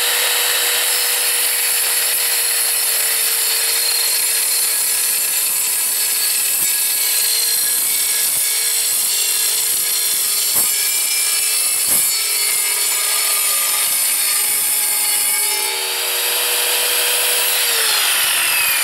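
Evolution R210SMS sliding mitre saw's 1500-watt motor driving its multi-purpose blade through 50 mm mild steel box section: a steady motor whine under a shrill metal-cutting screech. The note sags briefly under load about two-thirds through, and near the end the motor pitch falls away as the saw runs down.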